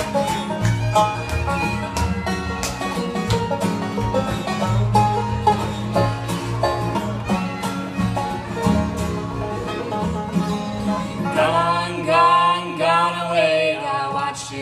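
Acoustic bluegrass band playing an instrumental break with no singing: banjo picking and strummed acoustic guitar over upright bass notes. Near the end a sustained, wavering melody line comes in above them.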